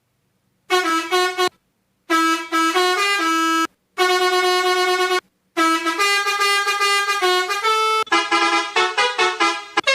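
Toy pianika (melodica) playing a telolet basuri bus-horn tune: reedy, horn-like held notes in short phrases broken by brief pauses. The notes start a little under a second in and quicken into a run of rapid notes near the end.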